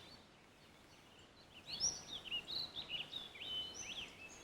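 Birds chirping in quick, high, rising and falling calls, starting about a second and a half in.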